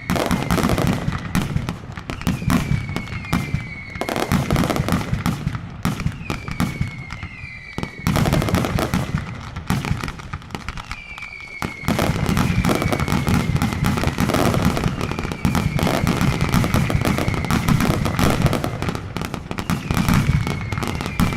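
Mascletà firecrackers going off in a dense, rapid barrage of bangs, with whistles falling in pitch again and again over them. About halfway through, the barrage thickens into a louder, nearly continuous crackle.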